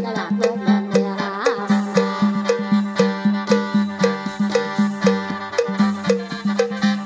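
Khaen, the Isan bamboo mouth organ, playing an instrumental mor lam passage: held chords over a steady drone. Light percussion keeps an even, quick beat.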